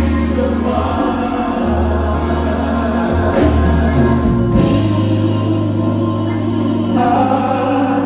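Gospel music: a choir singing over instrumental backing, with a bass holding long low notes that change every second or two.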